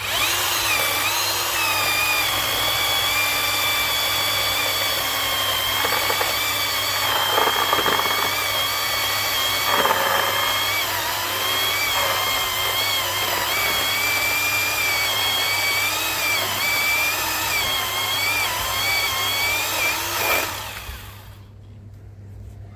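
YOVOT 12-inch cordless electric chainsaw running at full speed and cutting through a sizable log, a steady high whine that wavers slightly as the chain bites. About twenty seconds in it is released and spins down.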